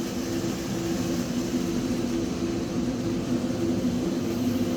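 Steady mechanical drone of a machine running in the background, holding a few constant low pitches without change.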